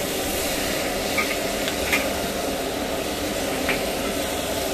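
Steady hiss of shrimp frying in a hot wok on the stove, with a few light clinks of a metal spatula against the wok.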